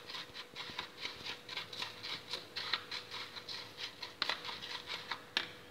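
Metal spoon stirring crushed, uncooked instant noodles mixed with their seasoning in a plastic bowl: quick, irregular scraping and crunching strokes, with two sharper clicks near the end.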